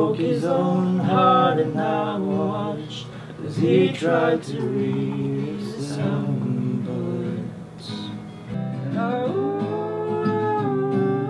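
Man singing a slow melody to his own acoustic guitar playing. The sound changes abruptly about eight and a half seconds in, where the song picks up at another point.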